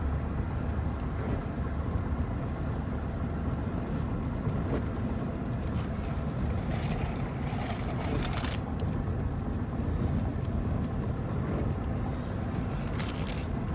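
Steady road and engine noise from a car being driven, heard inside the cabin, with a few brief swishes along the way.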